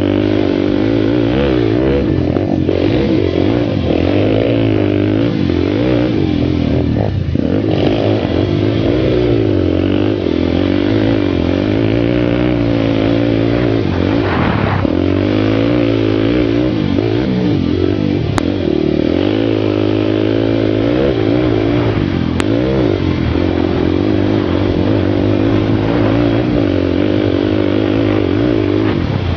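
Single-cylinder sport ATV engine heard from the rider's helmet, revving up and down repeatedly as the quad climbs loose sand hills.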